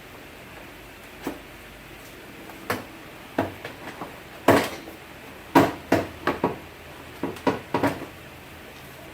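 A run of irregular sharp knocks and plastic clacks, the loudest about four and a half and five and a half seconds in: a car's plastic interior door panel being knocked and pulled loose from its retaining clips.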